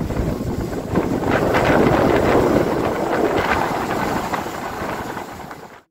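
Wind buffeting the microphone over rushing water, recorded from a boat under way on choppy water. It cuts off suddenly near the end.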